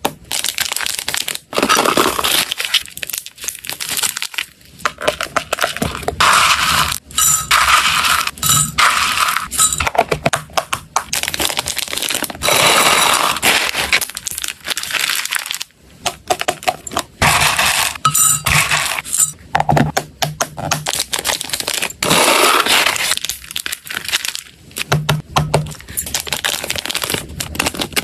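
Dry hamster snacks (pellets, puffed rice and small biscuits) clicking and clattering as they are handled and dropped into hard plastic boxes, with plastic snack bags crinkling. A dense run of small clicks and rustles, broken by a few short pauses.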